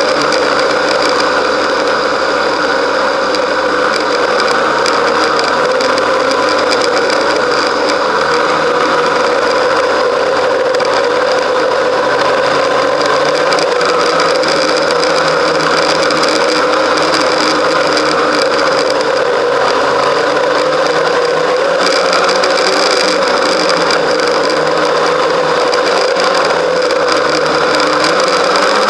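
Snowmobile running steadily along a trail, its engine and running gear heard from on board at a constant pace.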